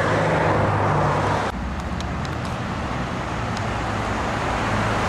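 A steady engine hum stops abruptly about a second and a half in. It gives way to the continuous rush of road traffic along a town street, with a few faint light clicks.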